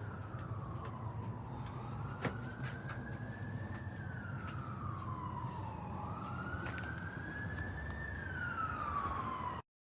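Emergency vehicle siren wailing, slowly rising and falling about every four seconds over a low rumble, with a few sharp clicks. The sound cuts off suddenly near the end.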